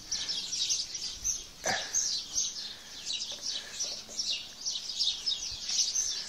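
Small birds chirping over and over in quick, high-pitched calls, with one short call sliding down in pitch about a second and a half in.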